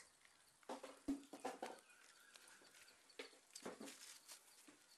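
Near silence, with a few faint, scattered clicks and taps, the loudest about a second in.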